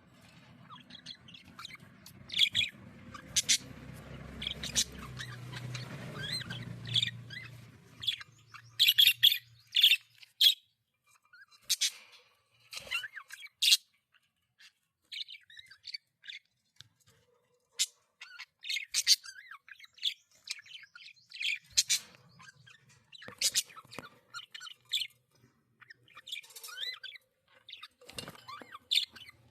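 Pet budgerigars chirping: many short, sharp calls in irregular bursts. A low steady hum lies underneath for roughly the first eight seconds.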